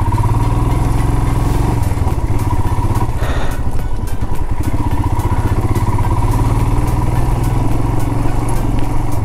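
Royal Enfield Himalayan's single-cylinder engine running steadily as the bike rides a rough dirt track, with frequent small clicks and rattles.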